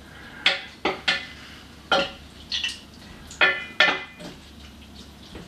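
A series of sharp clinks and knocks, some ringing briefly, of a drinking glass and a wooden spoon striking a stainless steel saucepan as water is added and the cod stew is stirred.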